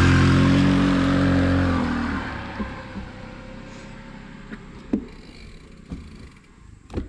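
A small motorcycle overtakes and pulls away, its engine running steadily, loudest at first and fading out over about two seconds. Afterwards there are only a few light knocks.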